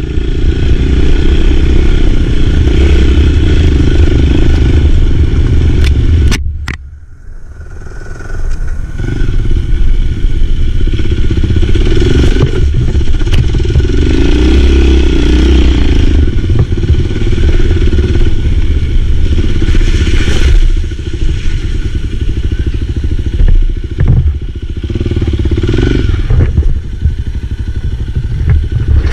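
Enduro motorcycle running while being ridden off-road, loud and steady, with a short quieter dip about six to eight seconds in.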